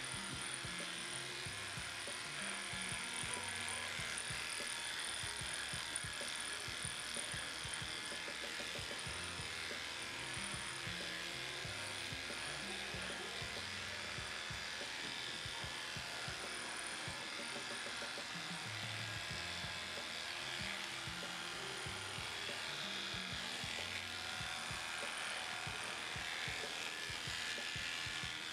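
Cordless electric dog clippers buzzing steadily as they shave through a matted coat, under background music with a slow-changing bass line.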